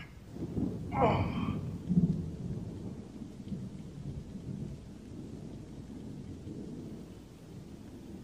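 Thunderstorm ambience: a low rumble of thunder over rain, with two loud peaks about one and two seconds in.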